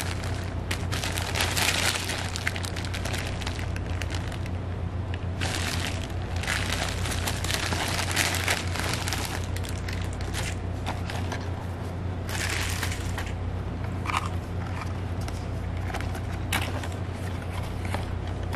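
A plastic courier mailer bag crinkling and rustling in the hands in irregular bursts, then a cardboard product box being handled and its flap opened, over a steady low hum.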